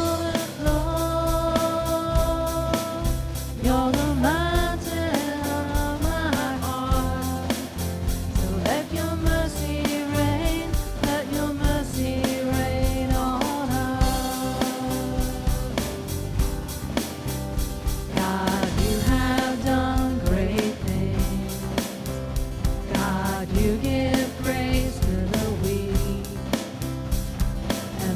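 Church praise band performing a contemporary Christian worship song: sung vocals over a full band accompaniment with a steady beat.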